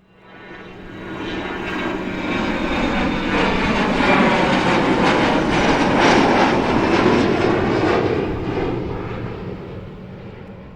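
Jet aircraft flying over: the engine noise rises out of silence, is loudest about four to seven seconds in, then fades away. The tone sweeps gradually downward as it passes.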